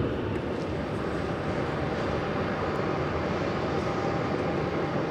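Gulfstream G650 business jet taxiing, its twin turbofan engines at low taxi thrust giving a steady rumble and hiss with a faint whine.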